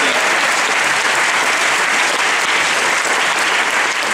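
Audience applauding, steady and loud.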